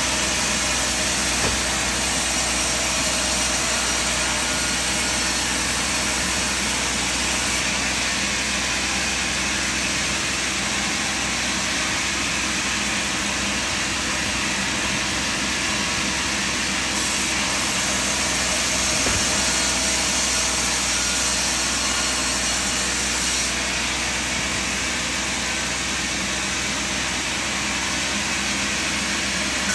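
Sawmill machinery running steadily: a constant engine and saw noise that does not change in level.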